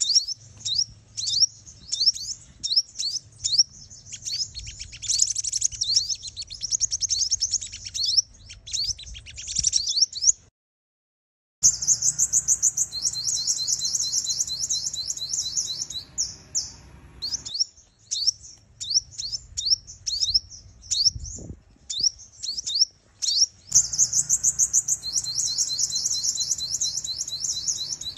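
Female sunbird calls used as a trapping lure to provoke males: dense runs of rapid, high-pitched chirps and trills. The sound drops out completely for about a second roughly ten seconds in.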